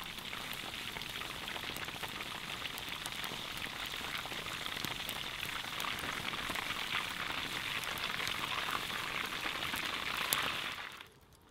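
Beer-battered dogfish deep-frying in hot oil in a metal mess tin: a steady crackling sizzle of many small pops, cutting off near the end.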